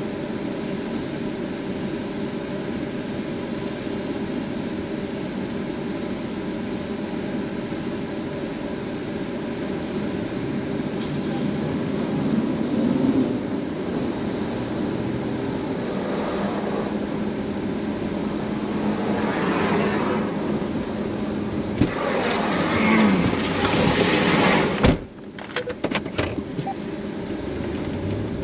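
Vehicle driving, heard from inside the cab: a steady engine and road rumble, with a louder rushing noise that builds from about twenty seconds in and cuts off suddenly about twenty-five seconds in, followed by a few sharp clicks.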